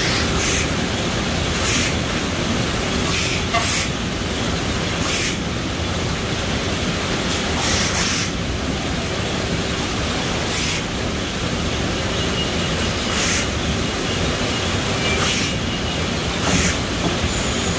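Automated apple tray-packing line running: a steady mechanical din from the roller conveyor and packer, broken every second or two by short, sharp hisses of air from the pneumatic vacuum-cup heads.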